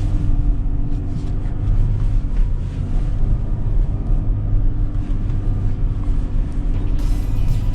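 The Chevrolet Colorado's 3.6-litre V6 petrol engine running steadily under load as the 4WD pickup climbs a steep slope of nearly 30 degrees in four-wheel high, heard from inside the cab.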